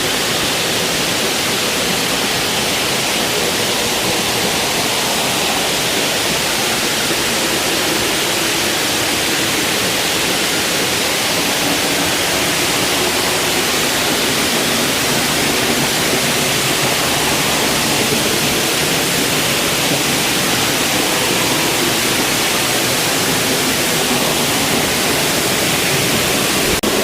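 A 65-foot waterfall in full flow: a loud, steady rush of falling water.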